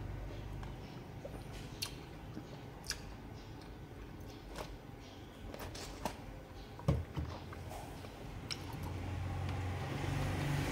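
Close-up mouth sounds of sipping milk tea through a straw: scattered soft clicks and smacks, with one louder knock about seven seconds in.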